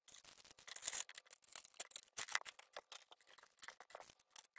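Faint crinkling and rustling of thin clear plastic bags and a plastic tray as small accessories are unpacked, heard as many short irregular crackles.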